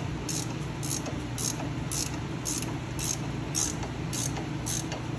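17 mm ratcheting gear wrench clicking on each return stroke, about two clicks a second, as it spins the nut off a stabilizer link, the stud held still with an Allen wrench. A steady low hum runs underneath.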